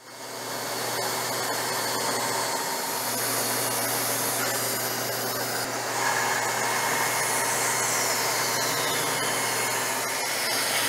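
Craftsman 12-inch band saw running steadily with a constant low hum and hiss while a board is ripped along the fence.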